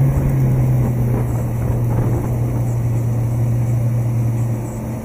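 Mercury Verado 200 supercharged four-stroke outboard running at speed: a steady low engine drone under the rush of water churned up in the wake.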